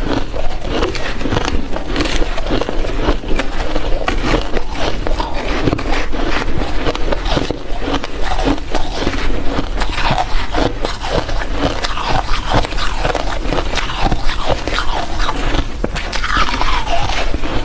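Soft ice being bitten and chewed close to the microphone: continuous, loud crunching with many sharp cracks.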